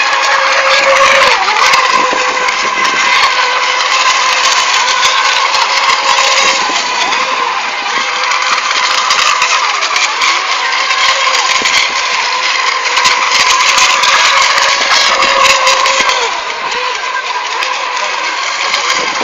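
Electric FSR-E class racing RC boats running on the water together: a steady, dense mix of motor whine and spray noise with no break.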